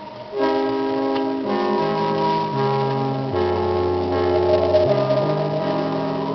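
Music played from a vinyl record on a Magnavox portable record player: held instrumental chords that change every second or so, coming in louder about half a second in.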